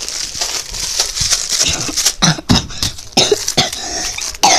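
Close rustling and crinkling right at the microphone, with irregular clicks and crackles.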